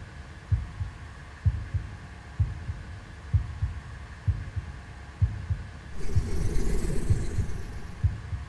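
Soundtrack sound design: a low, heartbeat-like bass pulse, about one beat a second and often doubled, over a steady drone. A hissing swell rises about six seconds in and fades about a second and a half later.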